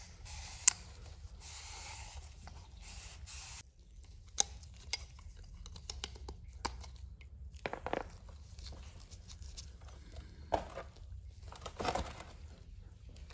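Cloth rag wiping and rustling against a plastic oil filter housing cap, then light clicks and short scrapes as a metal hook pick works the old rubber O-ring off the cap.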